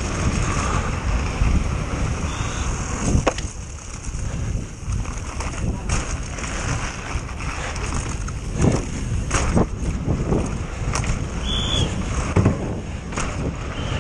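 Downhill mountain bike descending at speed over cobbles, grass and tarmac: a constant rumble of tyres and wind on the microphone, with the bike rattling and a series of sharp knocks as it hits bumps.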